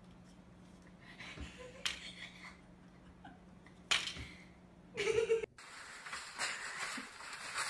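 A few sharp taps and paper rustles as a cat paws at papers and a sticky note on a tabletop, with a low steady hum behind, and a short voice-like sound about five seconds in. After an abrupt cut, a steady rustle of paper as cats tear at a paper towel roll.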